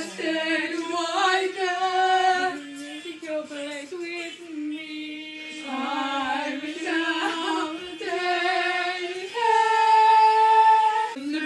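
Young women singing without accompaniment, holding long notes, with a loud sustained high note near the end.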